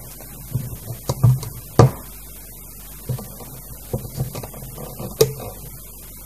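Small clicks and taps of rubber bands being stretched and slipped over the pegs of a plastic loom band loom, with soft handling knocks in between. The sharpest clicks come about two seconds in and again about five seconds in.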